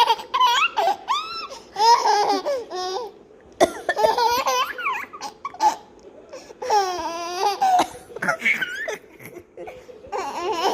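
Baby laughing in repeated bouts of high-pitched giggles with short pauses between them, set off by an adult's deliberate coughs.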